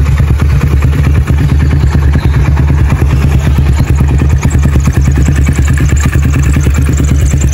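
Honda CB Megapro single-cylinder four-stroke motorcycle engine idling steadily through an aftermarket slip-on muffler, with an even, rapid exhaust beat that does not change pitch. It runs smooth.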